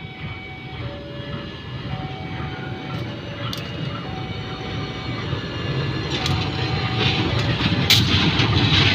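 KAI CC 201 diesel-electric locomotive approaching and passing close by, its engine and wheels on the rails growing steadily louder to a peak near the end. Behind it, a level-crossing alarm sounds two alternating tones over and over.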